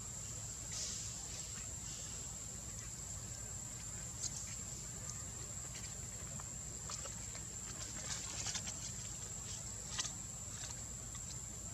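Steady high-pitched insect drone, like cicadas or crickets, with scattered faint clicks and rustles. The clicks come in a cluster a little past the middle, and the sharpest comes near the end.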